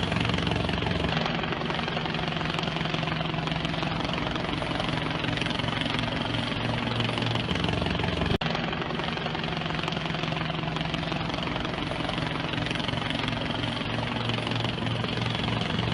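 A steady engine drone with a low hum. There is a sharp click about eight seconds in, after which the same drone carries on.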